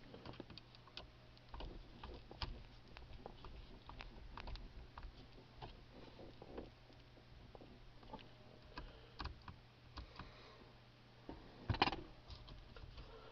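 Faint, scattered clicks and ticks of a Phillips screwdriver tightening down the screw that holds a replacement steering-column switch, with a short clatter of louder knocks near the end.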